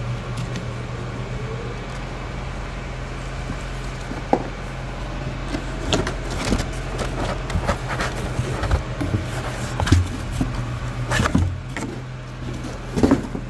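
A new brake power booster being handled in its cardboard box: scattered knocks and rustles of cardboard and paper over a steady low hum.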